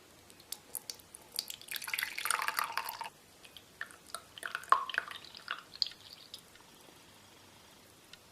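Milk boiled with chopped onion being strained: liquid poured through a strainer for about a second and a half, then dripping with light knocks of utensils, one sharper knock near the middle.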